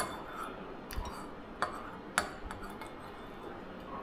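Cutlery clinking against dishes while eating: about four sharp clinks in the first two and a half seconds, then softer handling.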